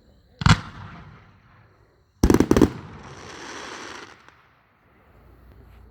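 Consumer fireworks cake firing, a gold wave tails crackle flower slice: one sharp shot about half a second in, then a quick cluster of bangs around two seconds in, followed by a second or so of fading hiss.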